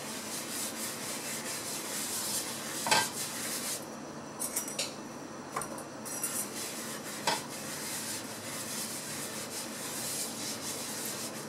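A folded wipe rubbed round and round a non-stick tawa to spread a thin coat of oil: a steady scrubbing, with a few light ticks against the pan.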